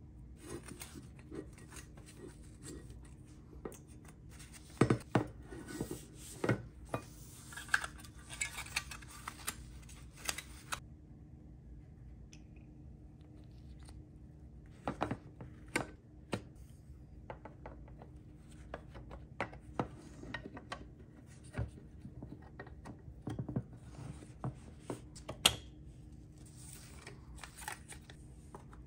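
Small plastic and metal parts of a diecast model truck being handled and fitted together by gloved hands: scattered sharp clicks and taps, with stretches of soft rubbing and scraping.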